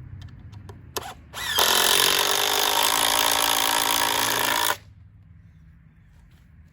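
Power drill running: a brief trigger blip, then it spins up quickly, runs steadily for about three seconds and stops abruptly.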